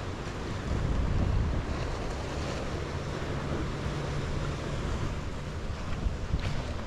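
Sea waves washing against the rocky shore, with wind buffeting the microphone in a low rumble.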